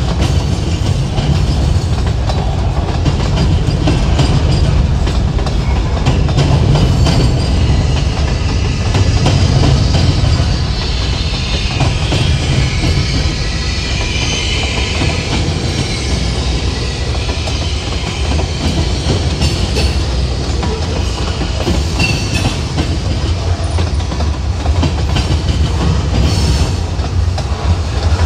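Freight train rolling past: a steady rumble with the wheels clicking over the rail joints.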